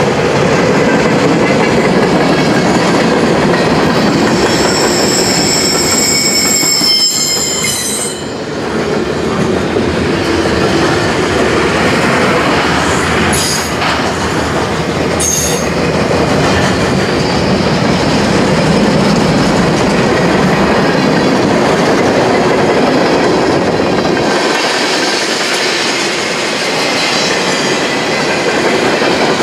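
Loud passing freight cars of a CSX train, their steel wheels rolling over the rail. A stretch of high-pitched wheel squeal comes a few seconds in, and two short squeals follow midway.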